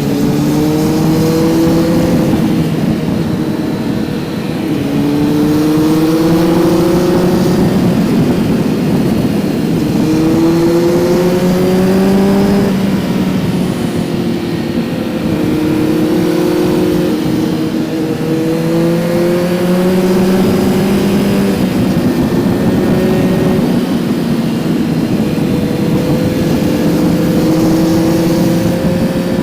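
Kawasaki Z900's inline-four engine heard from on board while riding, its note climbing under throttle and then dropping back, again and again, over a rush of wind and road noise.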